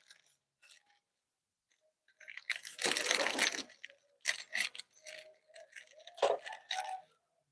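A transmission repair-kit package being opened by hand: a short rustle of packaging about two and a half seconds in, then light clinks and taps as the small metal bushing and pin are handled.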